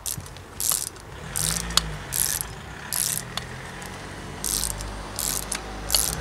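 Hand ratchet worked back and forth on a bolt, a quick run of pawl clicks with each return stroke, repeated about seven times.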